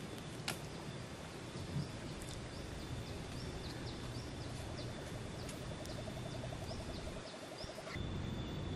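Outdoor pond ambience: a bird repeating short high chirps, two or three a second, over a steady high tone and a background hiss. A rapid low trill joins about halfway through, and the background noise grows louder near the end.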